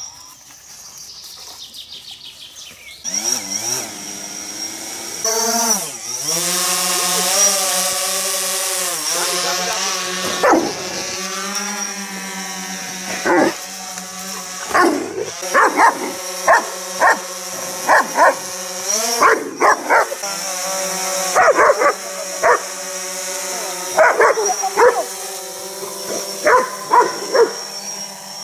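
Quadcopter drone's propellers buzzing steadily, the pitch swooping up and down as it lifts off and manoeuvres, with a high whine above the buzz. From about ten seconds in, a German Shepherd barks at it over and over, about once a second; the barks are the loudest sounds.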